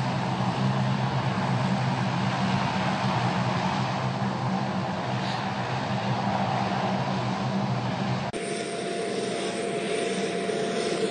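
Steady drone of a C-130 Hercules transport plane's four turboprop engines. About eight seconds in it cuts off abruptly, giving way to a quieter background with a faint steady tone.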